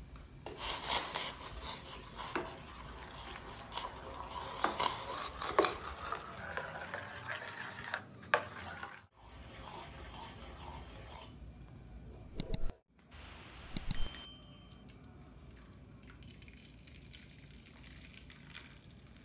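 Metal spoon stirring milk in a stainless steel saucepan, with repeated clinks and scrapes against the pan over the first eight seconds or so. Later comes a single ringing clink of metal, then a faint steady hiss.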